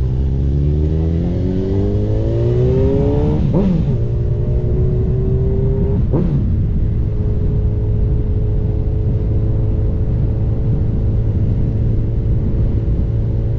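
Honda CB1000R inline-four engine accelerating under load. The pitch rises, drops sharply at an upshift about three and a half seconds in, rises again, and drops at a second upshift about six seconds in. After that the engine runs at a steady cruise, with low wind rumble underneath.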